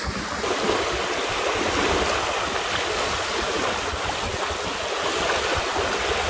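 Water rushing and splashing along the hull of a sailing yacht moving under sail at about 7 knots, a steady wash of bow wave and wake.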